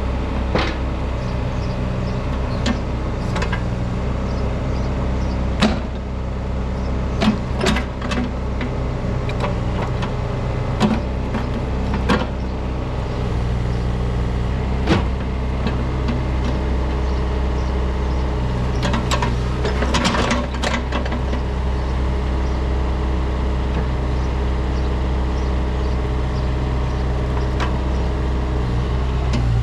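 CAT 303E CR mini excavator's diesel engine running steadily, with sharp clanks and knocks scattered through the first half and a short rattling burst about two-thirds of the way in.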